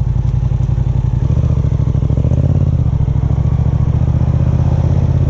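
Yamaha motorcycle engine running at a stop, then revving up about a second in as the bike pulls away and accelerates, with a further change in engine note a little past two seconds.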